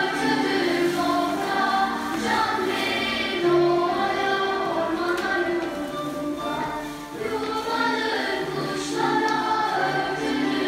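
Background music: a song sung by a group of voices, with notes held and changing steadily.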